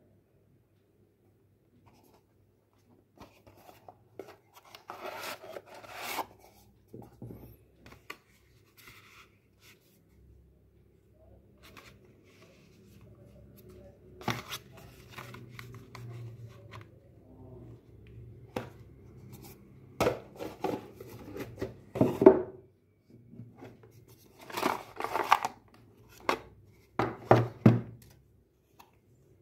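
Hands handling a Samsung Galaxy S20+ retail box and its cardboard and plastic inner trays: irregular scrapes, rustles and knocks as the parts are lifted out and set down on a wooden table. The sound starts about three seconds in, and the loudest knock comes about 22 seconds in.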